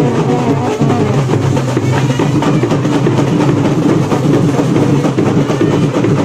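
Indian street brass band playing loudly: euphonium and trumpets over a steady, driving drum beat.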